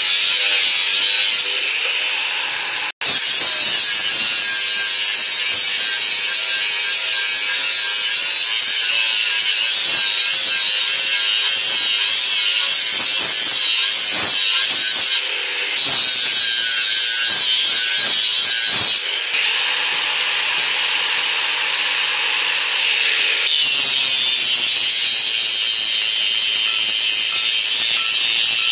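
Electric angle grinder grinding a steel knife blade: a steady, loud, harsh high-pitched hiss of the disc on the metal. The sound cuts out for an instant about three seconds in.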